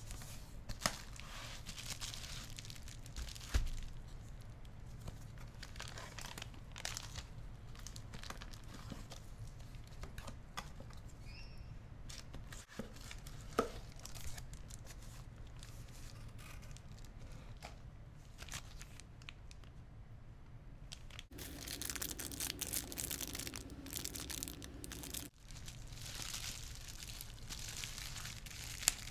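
Packaging being handled: cardboard flaps and paper leaflets rustling, with scattered light clicks. About two-thirds of the way in, louder crinkling and tearing of a plastic bubble-wrap pouch takes over.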